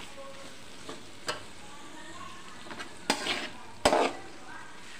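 Metal spatula stirring and scraping bitter gourd masala around a metal kadai, over a light, steady sizzle of frying. A few sharp scrapes and clinks against the pan stand out, the loudest a little before four seconds in.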